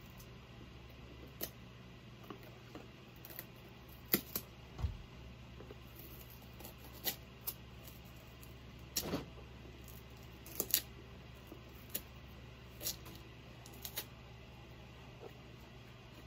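Scattered small clicks and short crackling tears as the tape-like tear-away layer is picked and peeled off Nike Air Force 1 sneakers, with one dull thump about five seconds in, over a faint steady low hum.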